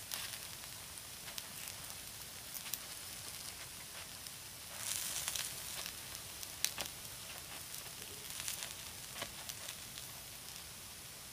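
Takoyaki batter sizzling in the wells of a Nichinen takoyaki plate, with scattered sharp clicks and scrapes from bamboo skewers turning the balls. The sizzle swells for about a second around five seconds in.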